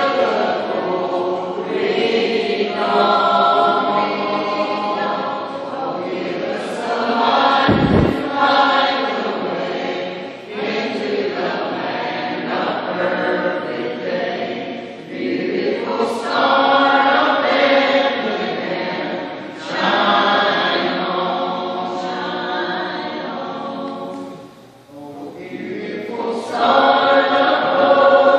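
Mixed choir of men and women singing together, in phrases separated by short breaths. A brief low thump about eight seconds in.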